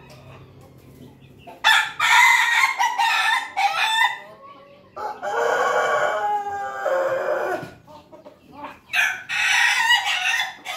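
Crossbred roosters (pelung, ketawa and bangkok crosses) crowing: three loud crows about three seconds apart, the middle one the longest and ending in a falling tail.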